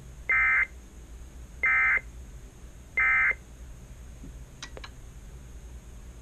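Emergency Alert System end-of-message signal: three short bursts of SAME digital data tones, each about a third of a second long and a little over a second apart, marking the end of the alert. A couple of faint clicks follow near the end.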